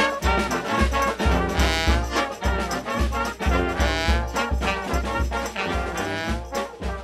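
Brass band music: trombones and trumpets playing a swinging tune over a low bass line that pulses in a steady beat.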